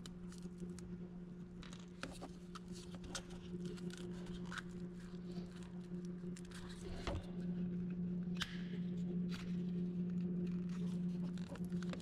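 Multi-pin plastic wiring connector being worked loose and slid off the engine computer: scattered sharp clicks, rattles and scrapes of plastic, over a steady low hum.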